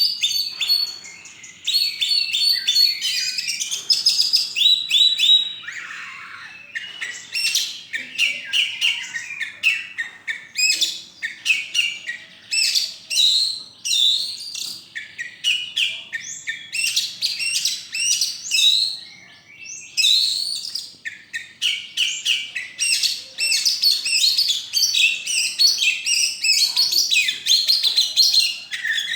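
Oriental magpie-robin (kacer) singing vigorously, a near-continuous stream of rapid, varied whistled and chattering phrases with a couple of brief pauses.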